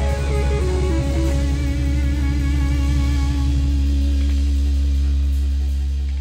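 Live blues-rock band, with electric guitar, bass guitar and drums, playing a descending guitar run that settles into a long held chord over a sustained bass note. The chord starts to fade near the end, as the song closes.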